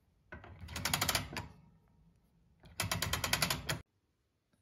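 The wick-adjustment dial of a round Toyotomi Moonlighter kerosene stove being turned, giving two runs of rapid ratcheting clicks, each about a second long, as the wick is raised ready for lighting.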